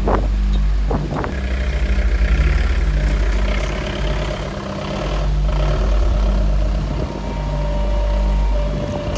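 Background music with deep, sustained bass notes changing in even blocks. Two swooshing transition effects come near the start, and a held higher tone runs through the latter half.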